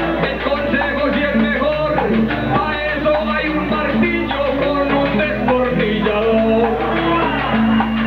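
Live Colombian trova paisa: a man sings improvised verses into a microphone over guitar accompaniment, without a break.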